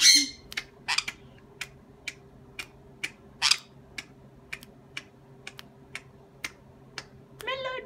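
Fingers snapping in an uneven rhythm, two or three sharp snaps a second, to a pet sun conure. The conure starts a squawk near the end.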